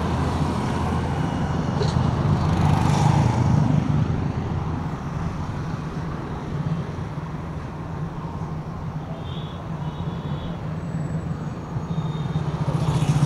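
Street traffic going by, motorbikes and cars: a steady wash of engine and road noise that is loudest in the first few seconds, eases off in the middle and swells again near the end.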